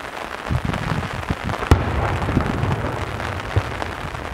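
Daytime aerial fireworks going off: a dense, irregular run of booms and crackling from bursting shells, with one sharp crack about a second and three-quarters in.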